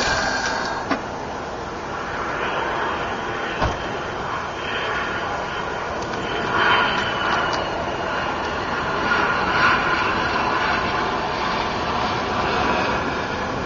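Steady engine drone with a sharp click about a second in and another near four seconds in. Louder swells come twice, near the middle and about ten seconds in.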